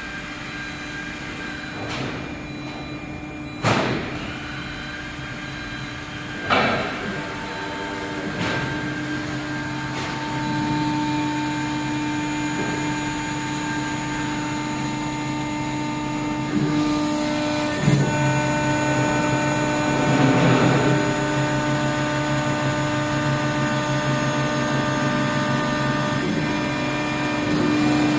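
Mini CNC router running while engraving copper: a steady machine whine made of several held tones, which shift pitch a few times as the motors change speed, with a few sharp knocks, the loudest about four and six and a half seconds in.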